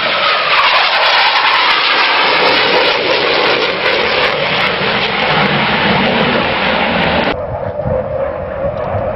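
Loud jet roar from Blue Angels F/A-18 Hornets flying past, with a whine that falls in pitch during the first second or so. About seven seconds in, the roar abruptly turns duller and less hissy.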